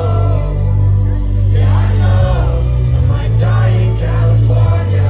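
Live rock concert music played through the venue PA: amplified band with a heavy, steady bass and sung vocals, heard from within the crowd.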